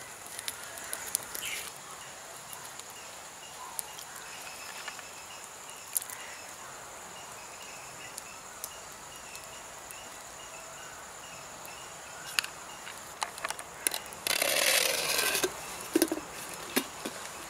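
Steady insect chirring with scattered small crackles from a wood fire. About fourteen seconds in comes a second-long scraping rush, then a few knocks, as the clay lid is set down on the clay cooking pot.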